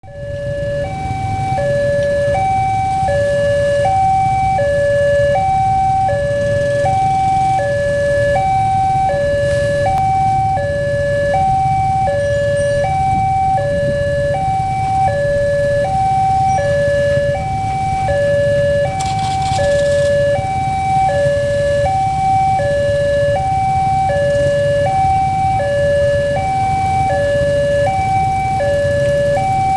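Railway level-crossing warning alarm sounding its continuous two-tone electronic signal, a high and a low tone alternating about once a second each, the warning that a train is approaching. A steady low rumble runs underneath.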